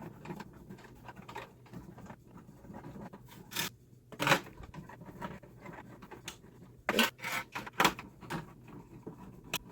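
3 mm hex wrench turning the heatsink screws on a Mac Pro CPU tray: light metal scraping and ticking, with a few sharper clicks about four seconds in and again around seven and eight seconds.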